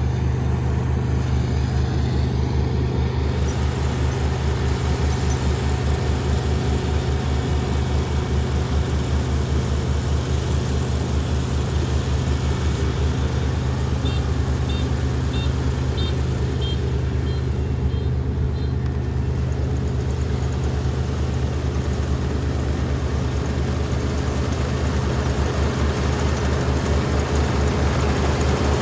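Kubota combine harvester's diesel engine running steadily while harvesting rice: a loud, even low drone with a fast pulse. A short run of faint high beeps sounds about halfway through.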